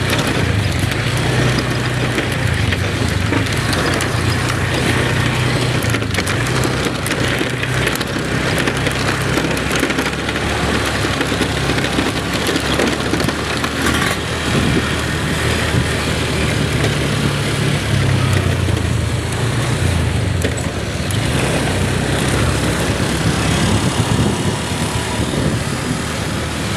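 A vehicle's engine and road noise while travelling, the engine note shifting up and down, over a steady rushing noise.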